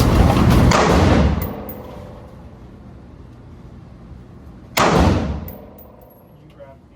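A single gunshot at the shooting range about five seconds in: a sharp crack that rings and echoes away over about a second. Before it, a loud noise fades out over the first second and a half.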